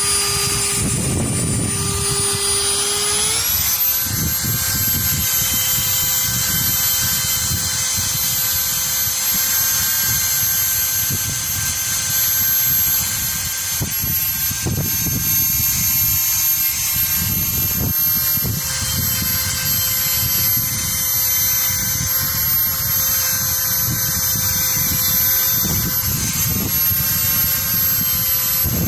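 Handheld high-speed rotary tool running with a steady whine, its pitch stepping up about three seconds in as the speed is raised. Irregular rasping underneath as the bit grinds the steel of the pliers.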